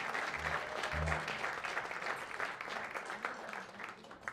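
Audience applauding a singer as she is welcomed to the stage, the clapping dying away toward the end. Two short low notes sound about half a second and a second in.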